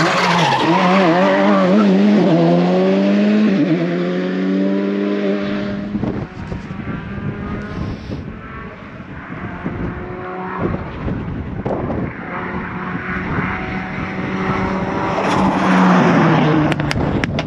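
A rally car accelerates hard out of a hairpin, its engine note climbing and wavering through the gear changes before fading. Then an Audi Sport quattro's five-cylinder engine is heard approaching, growing louder to a peak near the end as it drives past, its pitch dropping as it goes by.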